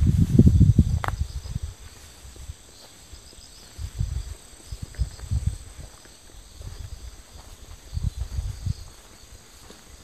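Insects chirring steadily in a forest, a continuous high drone. Low rumbling noise on the microphone comes and goes in several spells, loudest in the first second or so.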